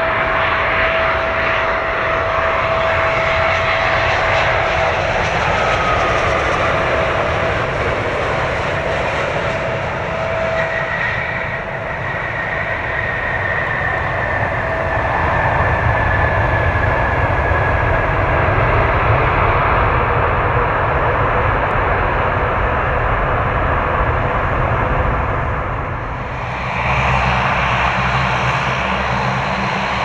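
Jet airliner engines running steadily, with a high whine that falls slightly in pitch midway through; the sound changes abruptly near the end.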